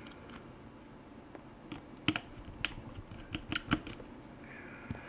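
Scattered small clicks and taps of a screwdriver and tiny screws as the four screws holding a hard drive inside a tablet are undone. The sharpest clicks come in a cluster between about two and four seconds in.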